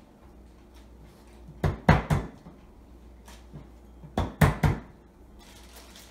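Flat of a cleaver slapped down by hand onto ginger slices on a cutting board, crushing them: two runs of three sharp thumps, about two and a half seconds apart. A faint plastic-bag rustle near the end.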